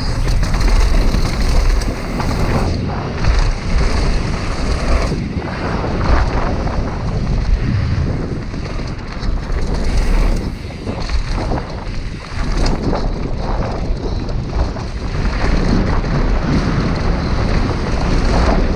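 Wind buffeting an action camera's microphone on a mountain bike riding fast down a dirt trail. Under it, the tyres rumble over the rough ground and the bike clatters with irregular knocks.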